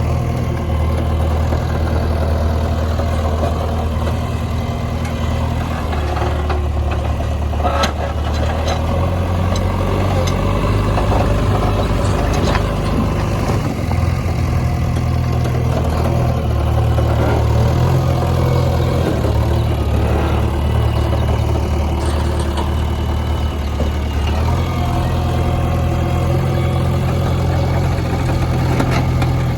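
Diesel engine of a JCB backhoe loader running under working load, its engine speed stepping up and down several times, with a few sharp knocks along the way.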